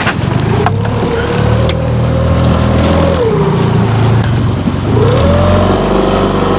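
Boat motor running, its pitch climbing, dropping back a little past three seconds in, then climbing again about five seconds in as the throttle is changed.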